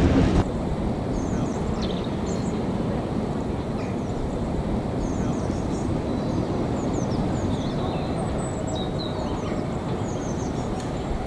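Small birds chirping now and then over a steady low rush of background noise. A louder noise cuts off about half a second in.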